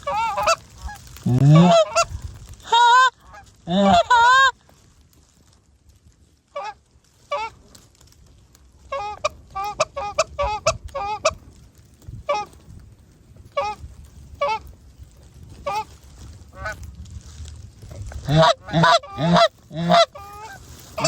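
Geese honking: a series of short, pitched honks, loud for the first few seconds, then fainter and scattered, then loud and rapid again near the end.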